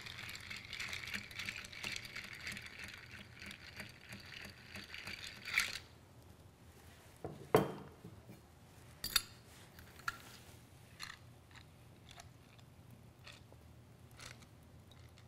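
Ice being stirred with a bar spoon in a cocktail: a steady rattle and clinking of ice for about six seconds that stops suddenly, followed by a few separate clinks and knocks.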